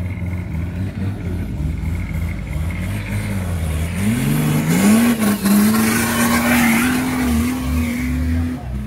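Nissan Patrol 4x4's diesel engine running at low revs under load, then revved up about four seconds in and held at high revs as it drives over steep, rough ground, puffing dark exhaust smoke.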